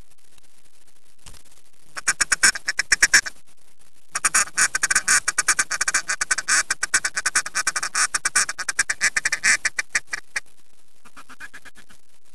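Loud duck quacking: a short run of quick quacks about two seconds in, then a long, rapid run of quacks and chatter lasting about six seconds.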